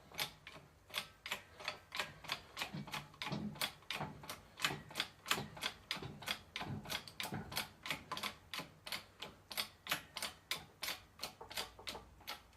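Ratchet wrench clicking steadily at about three clicks a second as it turns the bolt of a bearing press, seating a bearing on the front differential.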